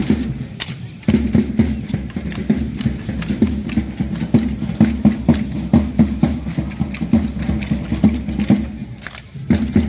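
Matachines dancers stamping out their steps in a fast, even rhythm of clattering footfalls. The stamping drops off briefly about a second in and again near the end.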